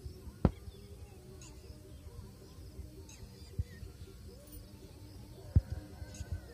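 Faint, scattered bird chirps over a quiet outdoor background, with three short, sharp low knocks.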